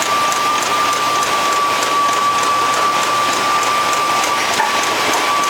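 Automated packaging line running: a continuous mechanical hiss from the conveyors and machinery, with a constant high-pitched whine and a faint regular ticking of about three a second.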